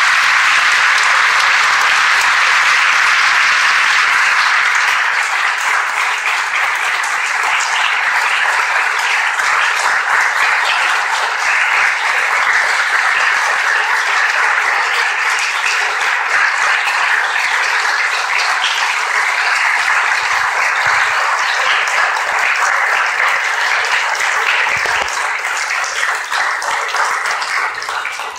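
Audience applauding, a dense steady clapping that starts as the piece ends and dies away near the end.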